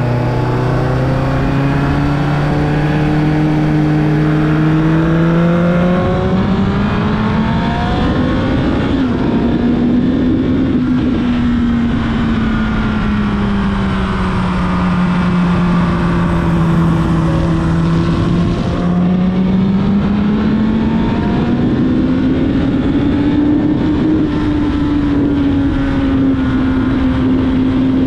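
Carburetted 2000 Yamaha YZF-R1's inline-four engine running under way. Its note climbs over the first several seconds, then rises and falls gently with the throttle.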